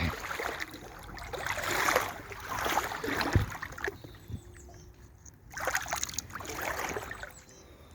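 Wellington boots wading through a shallow brook, water sloshing and splashing in uneven surges with each step.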